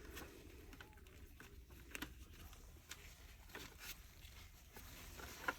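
Faint, scattered clicks and taps of plastic parts being handled as a Dyson Cinetic vacuum cleaner head is reassembled, over a low background hum.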